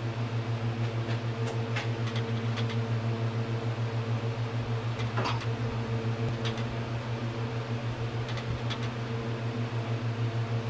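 A steady low mechanical hum with a regular pulsing beat, about four to five times a second. Over it come a few light metallic clicks and knocks as the cylinder head is handled and seated on an ATV engine.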